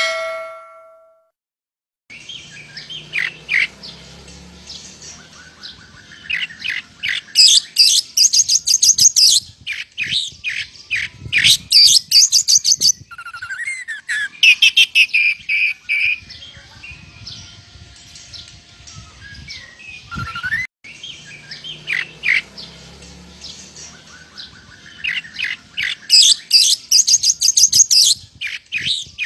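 A fading tone, the tail of intro music, dies away in the first second. Then an oriental magpie-robin (kacer) sings, mixing lovebird-style chattering into its song: quieter twittering broken by loud runs of rapid, high-pitched notes and whistles, several seconds each.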